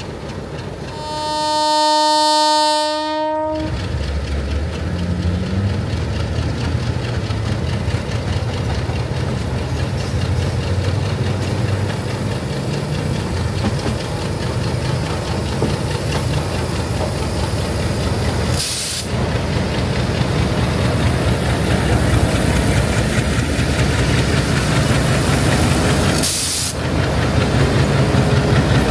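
Sri Lanka Railways Class M8 diesel locomotive sounding its horn once, a steady note of about two and a half seconds, then its diesel engine running and growing louder as it pulls the passenger train away and passes close by.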